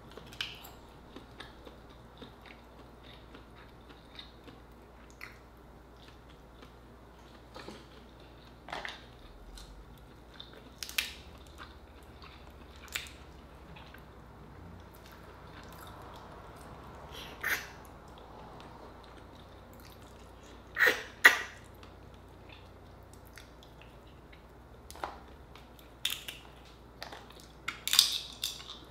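Eating Dungeness crab by hand: scattered small cracks and clicks of crab shell being pulled apart, with chewing and mouth sounds. The loudest are two sharp cracks in quick succession about two-thirds of the way through, and another cluster near the end.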